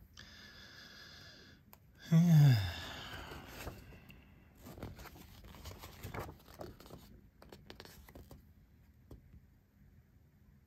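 Paper rustling and light handling noises, as the pages of a collector's magazine are moved about. About two seconds in there is a short, loud voice-like sound that drops in pitch.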